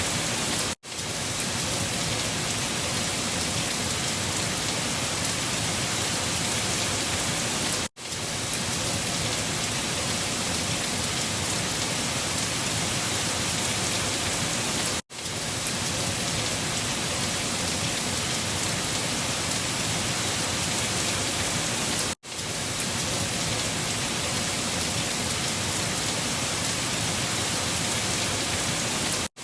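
Steady rain falling, an even hiss of many drops. About every seven seconds it cuts out abruptly for a moment and fades back in, the seam of a looped rain recording.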